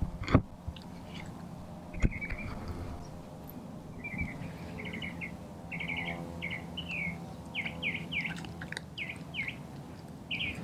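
A small songbird chirping in a quick series of short repeated notes through the second half. Before that come two sharp cracks, the loudest sounds here, from a Doberman biting into a whole raw chicken, bones and all.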